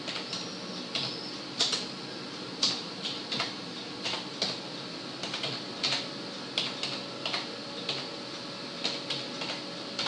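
Computer keyboard being typed on: irregular key clicks, about two a second, over a steady background hum.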